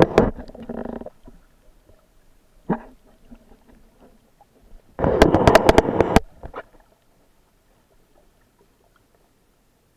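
Muffled water sloshing and bubbling around an underwater GoPro housing: a burst lasting about a second at the start, a short one near the three-second mark, and another crackling burst about five seconds in, then near silence.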